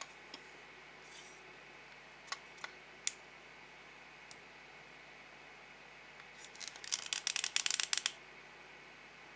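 Light handling clicks as the plastic-housed airbag control module and its circuit board are turned in the hands: a few scattered taps, then a quick run of rapid clicking lasting about a second and a half, starting about six and a half seconds in.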